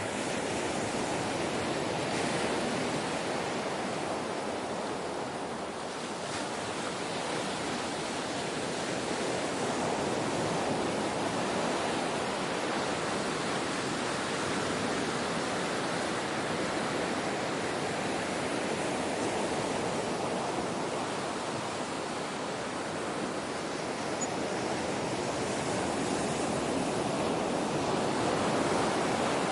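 Gentle ocean waves washing onto the shore: a continuous rushing surf that swells and eases slowly, with no sharp breaking crashes.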